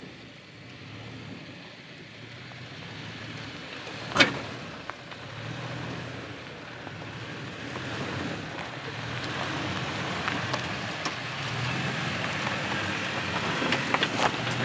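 Toyota Tacoma pickup crawling over a rocky dirt trail: a low engine hum with the crunch and crackle of tyres over loose stones, growing louder as it comes closer. A single sharp knock about four seconds in, with a few smaller clicks near the end.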